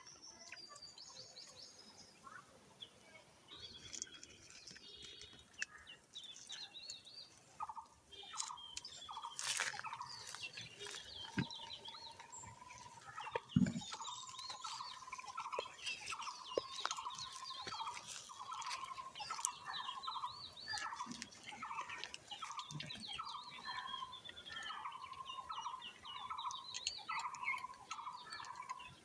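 Outdoor birds chirping, with one call repeated over and over at a steady pace from about a quarter of the way in. A few sharp knocks, the loudest about halfway.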